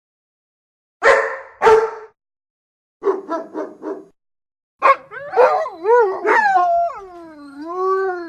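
A dog barks twice, then gives a quick run of about five short yips. About five seconds in, it breaks into a long howl that wavers up and down in pitch.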